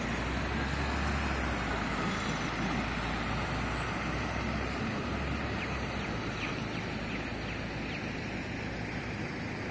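Road traffic at an intersection: a steady rush of passing cars and a bus, with a low engine rumble strongest in the first second or so and again around five seconds in.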